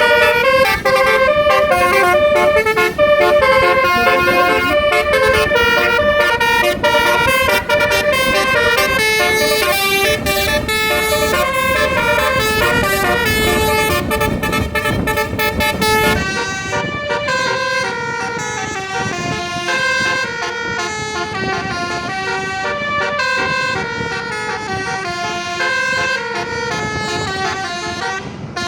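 Bus 'telolet basuri' multi-tone musical air horns playing a fast, running tune of quick stepped notes over engine rumble. After about sixteen seconds the rumble drops away and the horn tune goes on a little quieter.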